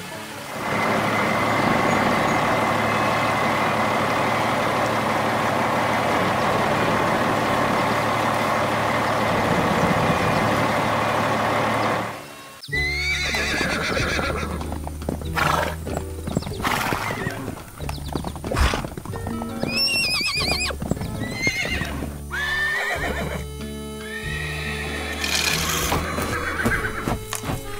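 Cartoon sound effects over background music: a steady, noisy sound fills the first twelve seconds, then a horse neighs several times, with hoof clip-clops, over a simple tune.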